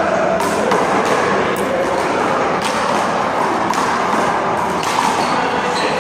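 Irregular sharp slaps and knocks of a small rubber handball being hit by hand, striking the wall and bouncing on the court, over a steady noisy background.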